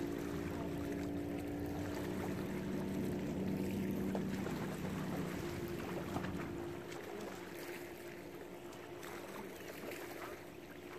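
Steady hum of a motorboat engine, fading somewhat in the second half, with wind noise and a few small knocks.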